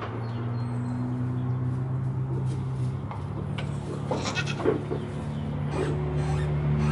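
Goats bleating: a few short, wavering bleats around the middle, over a steady low hum.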